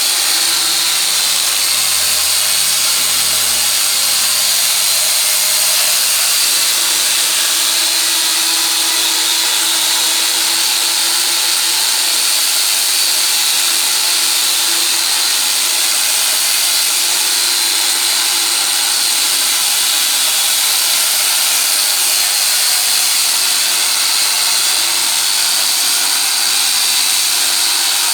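Electric angle grinder fitted with a mini chainsaw attachment, running steadily at high speed with a high whine as it cuts through a rambutan tree trunk.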